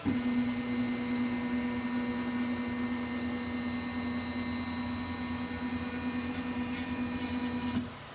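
Flashforge Creator Pro 3D printer making its grinding noise: a steady, even-pitched motor drone with a low hum beneath. It starts abruptly and cuts off after nearly eight seconds, with a few faint clicks shortly before it stops.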